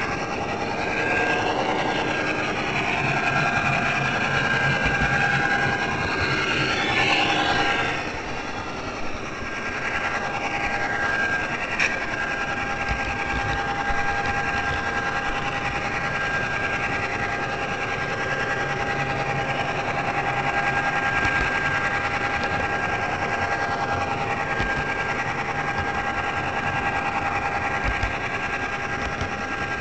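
HO scale model locomotive's small electric motor and gearing running steadily, heard from a camera riding on the train, with the wheels rattling along the track. Over the first eight seconds or so, higher whines slide up and down before the sound settles into a steady whine.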